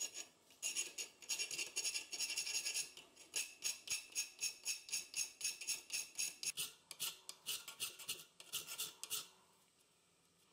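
Hand file scraping along a steel knife blade clamped in a bench vise, in quick, even back-and-forth strokes of about four a second; the filing stops about nine seconds in.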